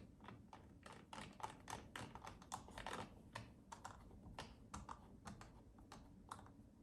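Faint, irregular light clicks and taps from a laptop's plastic case and keys being handled.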